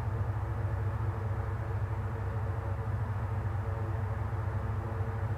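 Steady low background hum with a faint even hiss, unchanging throughout.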